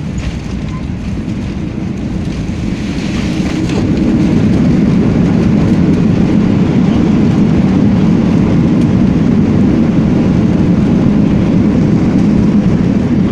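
Airliner on landing: engine and runway noise builds over the first few seconds to a loud, steady low rumble.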